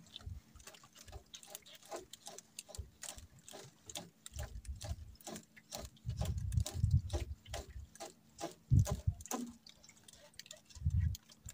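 Irregular light clicks and taps, several a second, with a few low rumbles of about a second each.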